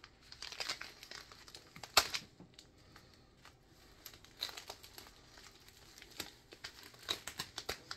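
Plastic bubble mailer crinkling and tearing as it is cut open with a pocket knife: scattered crackles, with a sharp click about two seconds in.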